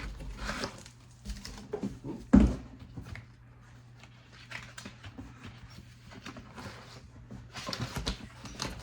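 Unboxing handling noise: scattered rustles and light knocks of cardboard and packaging, with one heavy thump about two and a half seconds in.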